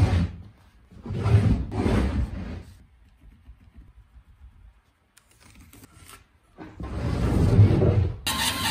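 Heavy apple burl blank sliding and scraping across a wooden workbench: a short scrape, two more about a second in, then a longer one after a quiet spell. Near the end a bandsaw's steady running cuts in abruptly.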